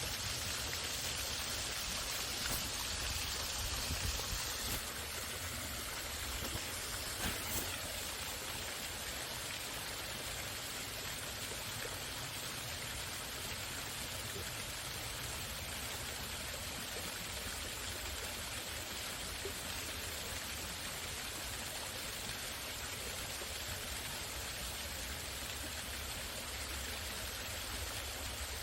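Waterfall running: a steady rush of falling water that turns slightly duller and quieter about five seconds in.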